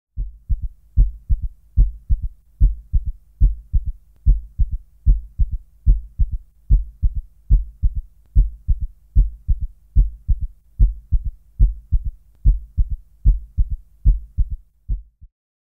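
A heartbeat sound effect: deep double thumps in a steady lub-dub rhythm, a little more than one beat a second, that stop abruptly near the end.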